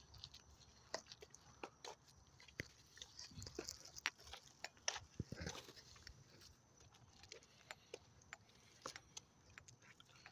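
An animal moving about close by: faint scattered clicks and a few short rustles, with nothing steady under them.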